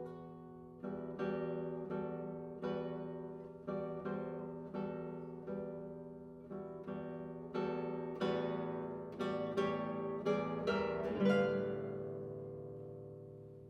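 Solo nylon-string classical guitar playing a contemporary classical piece. Plucked chords come about once a second, then grow faster and louder to a peak about eleven seconds in, where the last chord is left to ring and fade.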